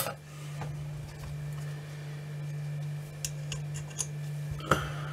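Small, light metallic clicks and taps from brass clock-movement parts being handled and fitted on the plates of a torsion clock, a few scattered over the last two seconds, over a steady low hum.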